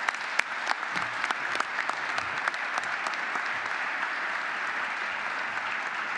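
Audience applauding: a few loud individual claps at first, quickly swelling into steady, dense applause from a large crowd.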